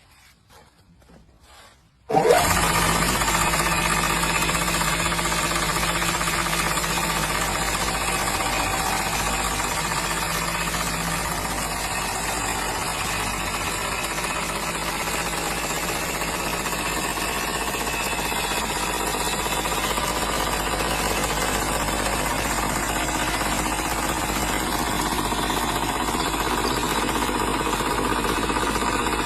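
Heavy-duty abrasive belt grinding machine switched on about two seconds in, then running steadily with a loud, dense mechanical noise and a rattle.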